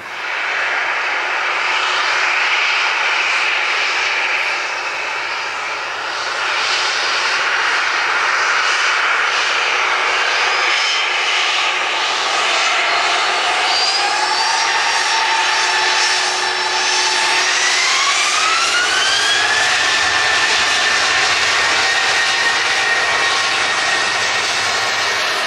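Jet airliner engines running loud, their whine rising in two steps about halfway through and then holding high: the engines spooling up towards take-off thrust.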